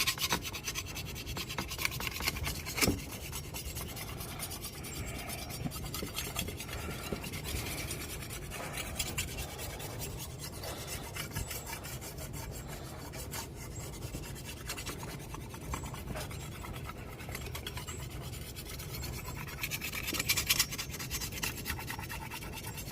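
Red jasper sharpening stone rubbed by hand along a machete's edge: continuous gritty scraping of stone on steel, a little louder near the end.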